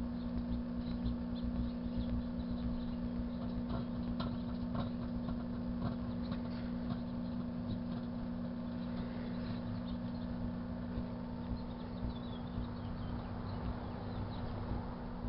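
Kenmore microwave oven running with a steady transformer hum, while the correction tape burning and arcing inside crackles and pops irregularly.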